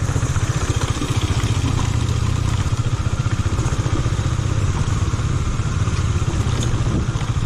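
KTM Duke 250's single-cylinder engine running at a steady low speed on a rough track, its exhaust pulses coming evenly and fast, with a steady hiss over them.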